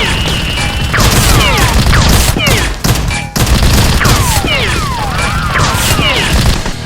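Rapid, continuous gunfire sound effects mixed with repeated falling whistling tones over a heavy low rumble.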